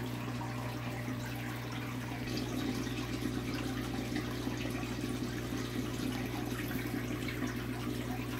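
Aquarium filter running: steady trickling and splashing water over a low electrical hum, the mix shifting slightly about two seconds in.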